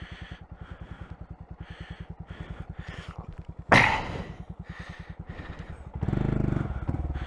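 Honda Monkey 125 single-cylinder engine running at a steady idle. About halfway through there is one sudden loud knock or clatter, and near the end the engine runs louder for about a second, as if under throttle.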